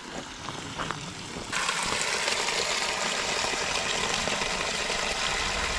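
Spring water gushing from a pipe spout in a steady rushing splash that starts suddenly about a second and a half in.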